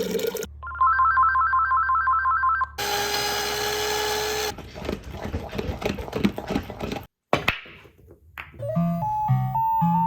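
Telephone ringer trilling in a rapid two-tone warble for about two seconds, then cut off. Other short sounds follow: a held tone, then a noisy stretch with clicks. Music with a melody begins near the end.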